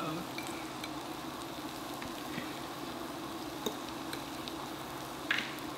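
Beef and vegetables sizzling on the hot grill plate of an electric hot pot-grill combo, a steady sizzle with a few faint clicks.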